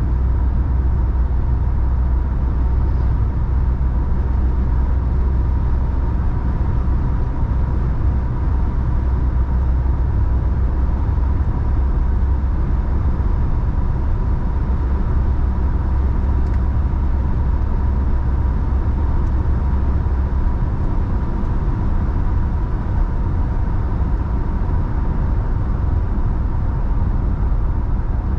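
Steady road noise of a car cruising, heard inside the cabin: a low tyre-and-engine rumble with a thin steady tone above it. The low rumble eases a little about two-thirds of the way through.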